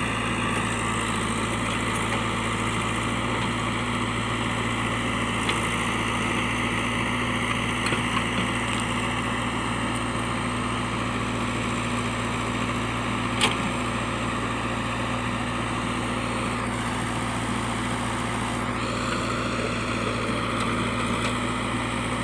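Diesel engine of a JCB backhoe loader running at a steady speed, with a single sharp knock a little past halfway.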